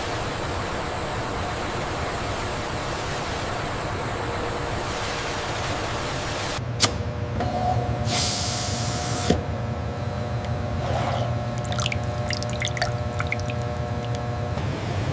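Steady machine hum with a sharp click, a burst of hissing about eight seconds in, and scattered light ticks near the end, typical of liquid-handling machinery.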